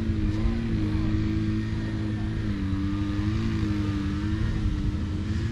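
A steady engine-like drone with a slowly wavering pitch, over a low rumble.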